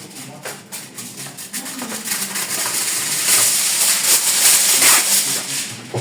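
Aluminium foil crinkling and rustling as it is folded over the fish, growing louder and busier in the second half.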